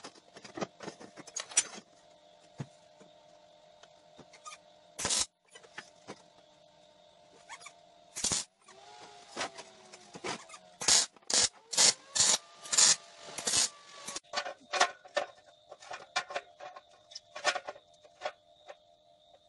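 Metal fabrication on a steel workbench: irregular sharp taps and clanks of a hammer on steel, with a cluster of short crackling bursts from MIG tack welds a little past the middle. A faint steady tone runs underneath.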